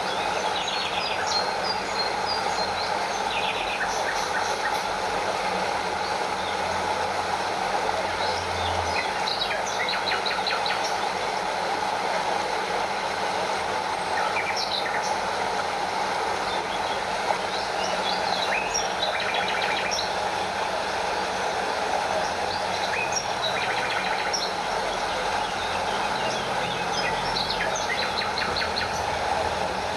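Stream water rushing steadily over a small waterfall, with short high chirps now and then.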